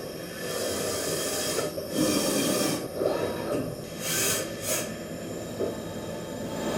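Mazak VARIAXIS i-800T 5-axis machining center cutting an S45C steel workpiece, with steady cutting and coolant noise. Two short bursts of sharper hiss come about four seconds in.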